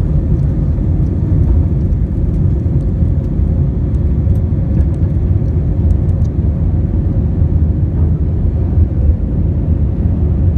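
Airliner's jet engines at takeoff thrust, heard inside the cabin: a loud, steady low rushing noise as the plane speeds down the runway and lifts off.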